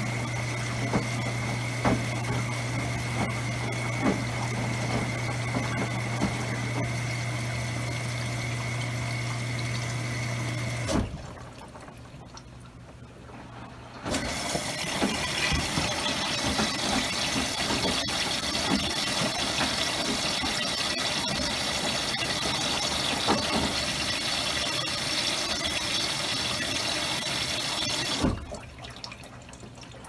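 Maytag Commercial Technology front-load washer running with a load of plush toys: the drum turning with water sounds and a steady motor hum. It drops away twice for a few seconds, about a third of the way in and near the end.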